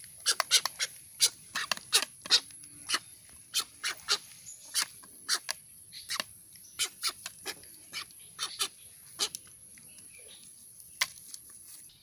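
A young egret giving many short, harsh calls in quick, irregular succession as it feeds.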